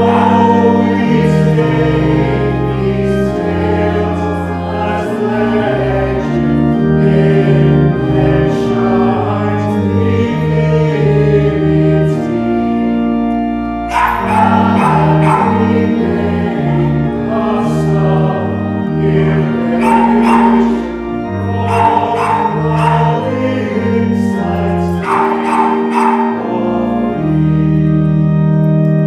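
A congregation singing a hymn in unison, accompanied by a pipe organ holding chords under the voices. A long chord is held near the end of the line.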